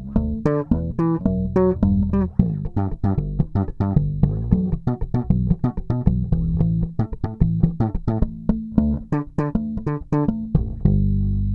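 Warwick Rockbass Streamer Standard five-string electric bass played fingerstyle through its neck pickup alone: a quick run of plucked notes, then one low note held and left to ring near the end.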